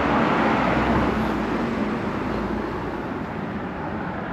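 Road traffic noise: a steady rush of passing vehicles that slowly fades.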